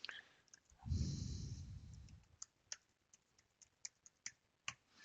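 A long breath out near the microphone, a sigh, about a second in, followed by a string of sharp single computer mouse clicks, about eight of them spread unevenly over the rest of the time.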